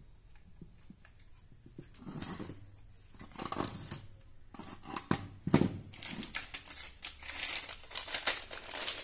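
Plastic bag of small metal fittings crinkling and rustling as it is handled, loudest in the second half. Before that come a few knocks as the plastic body of a moulded-case circuit breaker is moved about on the floor.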